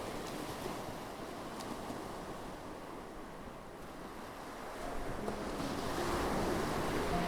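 Ocean waves washing onto a shore, a steady rush that eases and then swells again about five seconds in as a wave comes in. A few faint piano notes creep in near the end.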